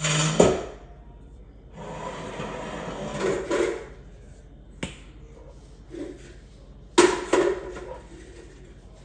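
Knocks and clatter of things being handled and set down on a kitchen counter: a loud clatter at the start, a couple of seconds of rough rustling and rattling, a sharp tap near the middle, and two loud knocks close together about three-quarters of the way through.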